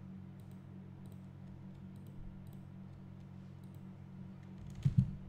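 Faint computer mouse and keyboard clicks over a steady low hum, with one louder click or knock near the end.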